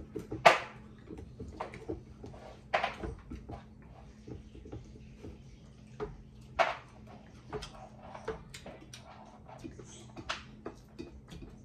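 Eating noises from people chewing deep-fried chicken drumsticks and rice by hand: wet chewing and lip smacks as many short clicks, with a few louder sharp smacks or bites spread through.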